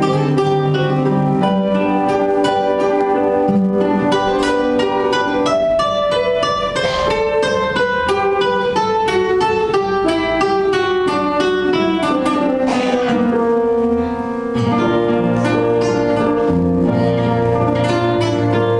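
Guitar music: a continuous stream of quickly plucked notes, with a brief drop in loudness near the end.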